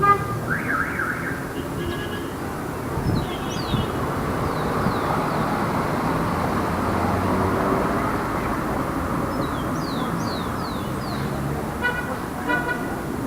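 Light city street traffic: a steady wash of passing cars' engines and tyres, with brief car horn toots at the start and again near the end, and a few short high falling chirps in between.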